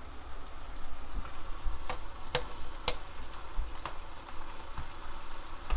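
Marinated LA galbi (cross-cut beef short ribs) frying in its soy-based marinade in a pan, a steady hiss of cooking, with a few sharp clicks of metal tongs against the meat and pan around the middle.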